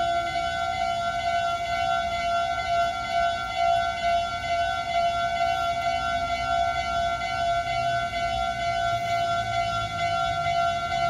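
Japanese railway level-crossing warning bell ringing continuously: a steady electronic tone with a strong pitch and many overtones. A low rumble underneath grows stronger near the end.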